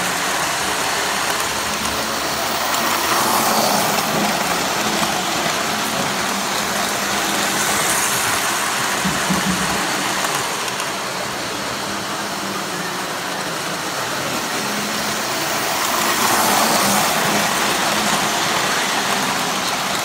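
Three-rail model trains running on tubular tinplate track: a steady rumble and rattle of wheels and motors, swelling louder as the cars pass close by, about three seconds in and again near the end.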